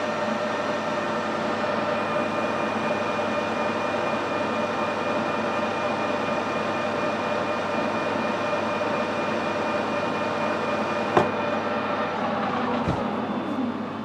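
Metal lathe with a large four-jaw chuck running steadily, its headstock gearing giving a steady whine. About eleven seconds in there is a sharp click as it is switched off, and the spindle winds down, the whine falling in pitch.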